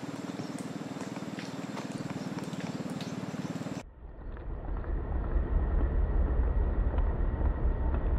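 A steady low pulsing drone with a few faint sharp clicks; about four seconds in it cuts to a louder deep rumble, with only an occasional click.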